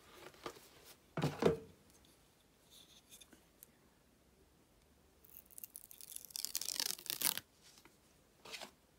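The release liner being peeled off the 3M foam adhesive pad on the back of a wooden wall hook: a rasping tearing noise lasting about two seconds, a little past halfway. A knock from handling the hook comes about a second in.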